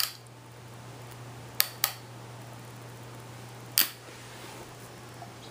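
Four sharp clicks: one at the start, two close together about a second and a half in, and one near four seconds, over a steady low hum.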